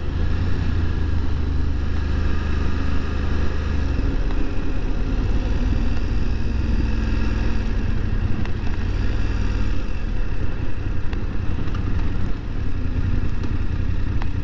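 BMW F750 GS parallel-twin engine running at road speed, under heavy wind and road noise on the mic. The level dips briefly near the end as the bike slows for a stop sign.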